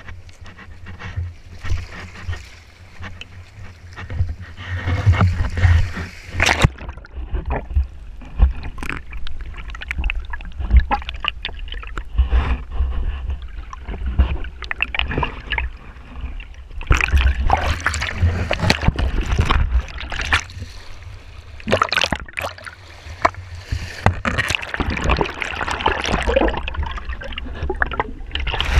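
Sea water splashing and sloshing against rocks. About six seconds in the sound turns muffled and under water: a low rushing rumble with many small clicks and crackles of moving water and bubbles.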